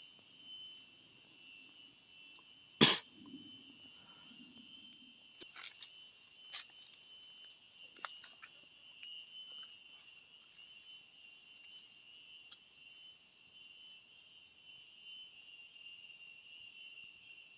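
Steady high-pitched chorus of forest insects, several constant tones held without a break. About three seconds in comes one sharp, loud knock, with a few lighter snaps and rustles afterwards.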